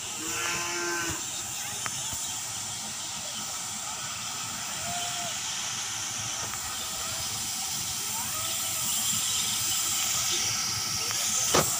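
Steady high-pitched hiss of outdoor background noise, with a brief voice in the first second and a sharp click about a second before the end.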